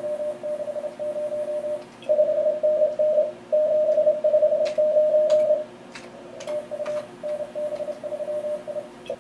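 Morse code (CW) from an Elecraft K3 transceiver's speaker: a tone of about 600 Hz keyed on and off in rapid dots and dashes over hiss and band noise, as stations trade contest exchanges. A few sharp clicks come in the middle.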